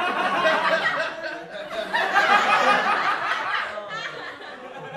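Audience laughing after a joke's punchline. The laughter builds and then fades away about four seconds in.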